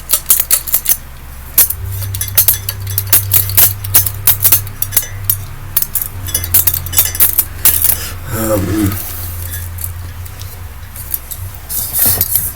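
Ceiling fan parts being handled: repeated sharp clicks and clinks of small metal and glass pieces knocking together, over a steady low hum.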